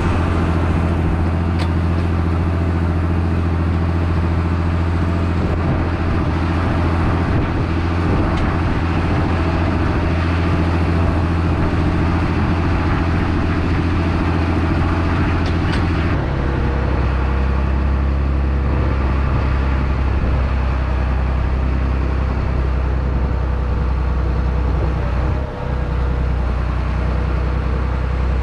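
Diesel engine of harvest machinery running steadily under load in a wheat field. About halfway through, its note drops to a lower pitch and holds there.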